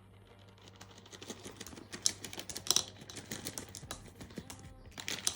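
Speckled candy eggs clattering as they are poured or dropped into a container: a fast, uneven run of light clicks.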